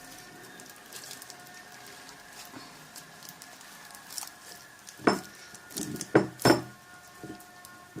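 Homemade glitter slime being kneaded in cream-coated hands: faint sticky crackling, then a few louder squelches and knocks about five to six and a half seconds in.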